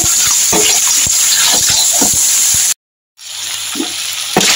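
Snails in their shells sizzling in hot oil in a wok, with many sharp clicks of the shells knocking together as they are stirred. The sound cuts out briefly about three seconds in, then carries on a little quieter.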